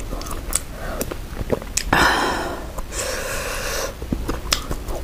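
A person noisily slurping spicy malatang broth off a metal spoon: two long airy slurps, the louder one about two seconds in, among small clicks of spoon and mouth.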